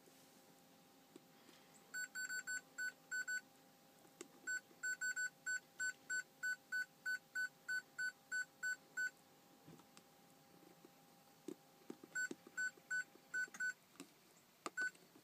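Short, identical high-pitched electronic beeps from a diagnostic scan tool's keypad, coming in irregular groups with one run of about three beeps a second, as buttons are pressed to read the no-start Ford 6.0 Powerstroke diesel.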